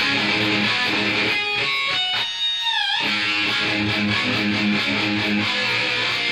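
Rock music led by an electric guitar riff in a steady rhythm. About a second and a half in, the low part drops out for a moment under a high guitar line that bends down in pitch, then the full riff comes back.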